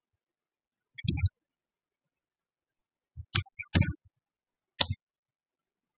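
Computer keyboard keys clicking in a few short clusters of keystrokes, about a second in and again three to five seconds in, as code is typed.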